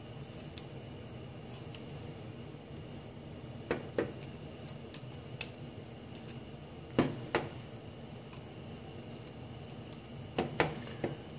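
Steel pliers clicking and tapping against a thin aluminum strip held in a gas stove burner's flame: a few sharp metal clicks, mostly in pairs, about four, seven and ten seconds in, with fainter ticks between. Under them, the gas burner runs with a steady hiss.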